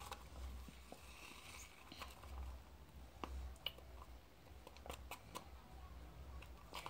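Faint handling noises: scattered light clicks and soft rustles over a low steady hum.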